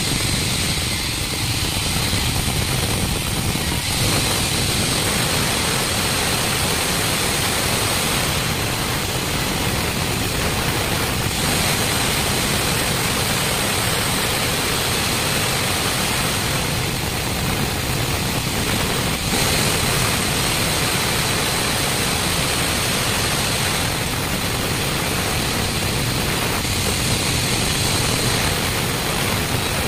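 Large vertical band saw running and ripping a bark-covered log lengthwise: a steady, loud sawing noise with a faint high tone over it.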